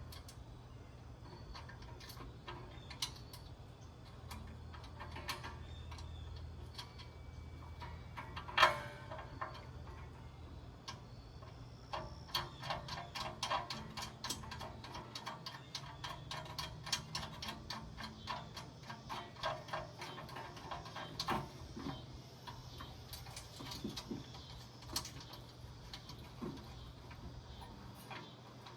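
Small metal clicks and taps of a nut being tightened onto a bolt with a hand tool, fixing a ground wire on a gas grill. There is one sharper knock about nine seconds in, and in the middle a long run of quick ticks, several a second.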